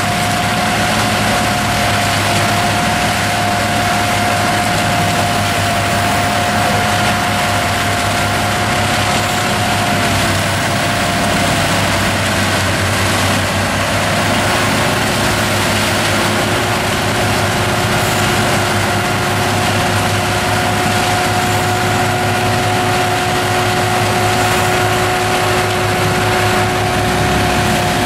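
Tractor engine running steadily under load, driving a PTO forestry mulcher whose rotor grinds standing poplars into the ground. A steady whine sits over the engine, dipping slightly about ten seconds in, and a lower whine joins about halfway through.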